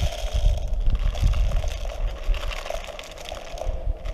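Airsoft BBs rattling and pouring as a speed loader is emptied into a light machine gun's plastic box magazine, a dense irregular patter of small ticks, with low bumps from gloved hands handling the gear.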